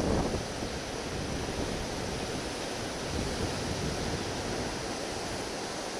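Wind buffeting the camera's small built-in microphone over sea waves washing against the rocks: a steady rushing noise.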